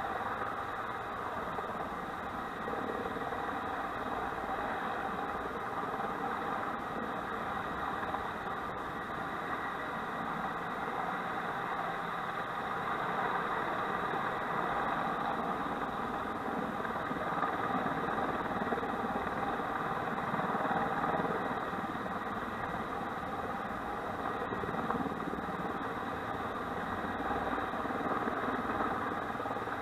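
Firefighting helicopter running steadily close to the ground, a continuous engine drone with steady whining tones from the turbine and rotor.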